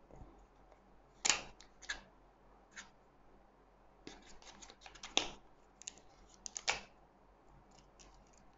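Hands handling the small cardboard box and insert tray of an e-cigarette kit: scattered short clicks, taps and rustles as the pen is worked out of the tray.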